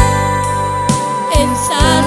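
A Christian song playing, with held chords over a bass line that changes note about a second in. A wavering melodic line comes in near the end.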